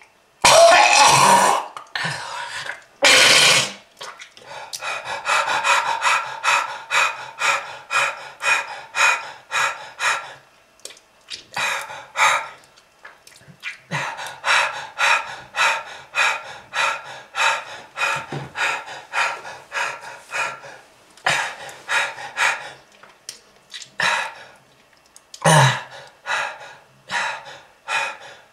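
A smoker's coughing fit: two loud, harsh coughs open it, then a long run of short hacking coughs, about two or three a second, with brief pauses and a few louder coughs breaking in later.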